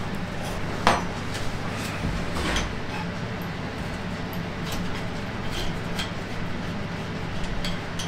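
Metal clinks and knocks from a cylinder barrel and piston being handled and fitted over the head studs of a Fiat 500 engine. The sharpest knock comes about a second in, followed by a short scrape, then a few light clicks. A steady low hum runs underneath.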